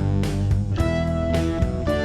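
Background music: guitar strumming over a bass line with a steady beat.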